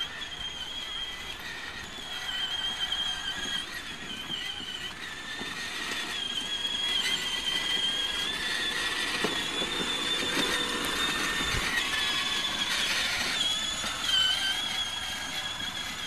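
High-pitched whine of a battery-powered ride-on toy car's electric drive motors and gearbox, wavering slightly in pitch as it drives. It grows louder for a while from about six seconds in.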